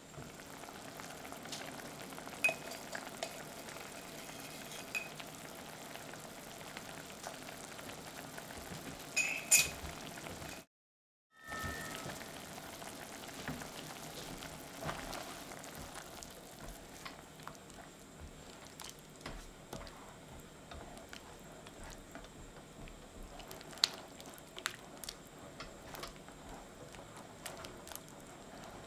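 Sweet and sour sauce of tomato passata and pineapple juice bubbling in a metal pan, with a steady patter of small bubble pops and a few light clinks. The sound drops out completely for about a second near the middle.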